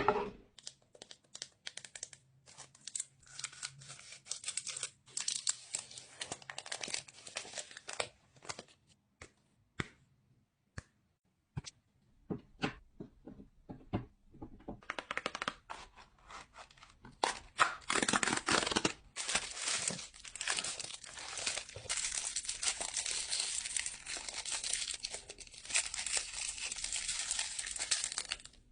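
Sweet and chocolate wrappers and packaging being torn open and crinkled. Quick bursts of crinkling for the first several seconds give way to a few scattered clicks and taps. From about halfway, the crinkling and rustling run almost without a break.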